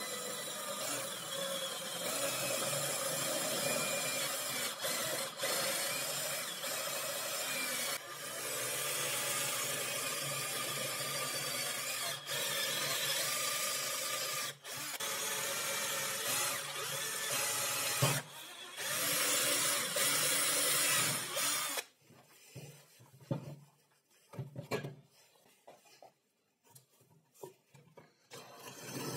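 Cordless drill with a step drill bit boring through sheet metal backed by plywood, running in long stretches with a few brief pauses, the bit grinding and scraping as it cuts. About three quarters of the way through it stops, leaving only scattered light knocks from handling.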